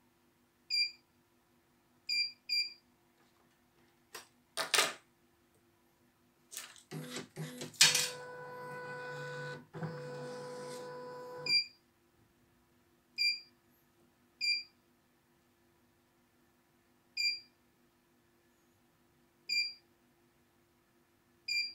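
CNY E900 computerized embroidery machine: its control panel gives short, high electronic beeps, eight in all, as keys are pressed. Near the middle, after a few clicks, the embroidery unit drives the hoop to its start position with a steady motor whine that lasts about five seconds and stops abruptly.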